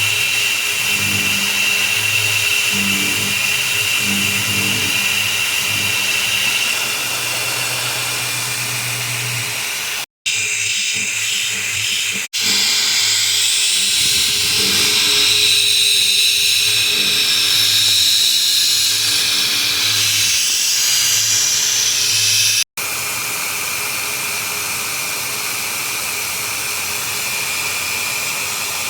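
Milling machine end mill cutting the part: a steady high whine over a low hum. It breaks off in abrupt cuts about ten and twelve seconds in, and again near twenty-three seconds. Between those last cuts it runs louder and higher-pitched.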